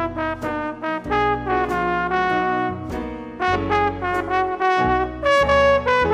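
A live band's instrumental break: a brass lead melody moving in short notes over bass and drum hits, with a longer held note near the end.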